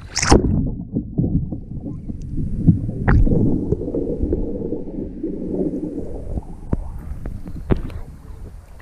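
A sharp splash, then muffled sloshing and gurgling of water around a kayak, with scattered small knocks.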